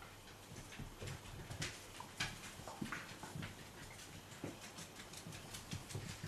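Six-week-old puppies moving about, with faint, irregular light clicks and taps; the sharpest tap comes about two seconds in.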